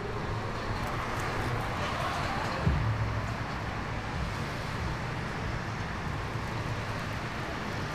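Steady city street traffic noise, a low rumble of passing cars, with a brief low thump about three seconds in.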